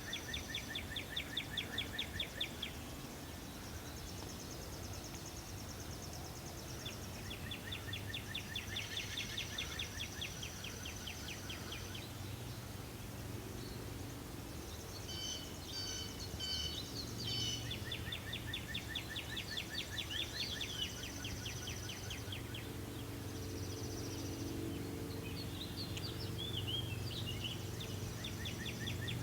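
Birds singing: a rapid trill of a few seconds recurs about every eight to ten seconds, with shorter chirps and whistles between. A faint low hum runs underneath.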